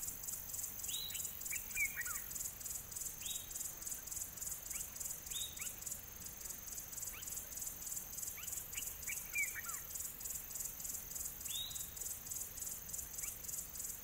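Insects trilling in a steady, high-pitched, rapidly pulsing chorus, with birds giving about a dozen short, falling chirps scattered through it: a quiet bush soundscape.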